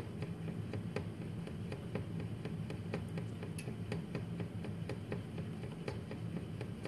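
A pot of milk heating on a stove ticks and rattles in sharp, irregular clicks, about two a second, over a low steady hum. The pot shakes on its own as the milk nears the boil.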